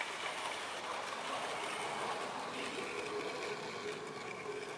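OO gauge model train rolling along its track, its wheels on the rails giving a steady noise that slowly fades as the train draws away.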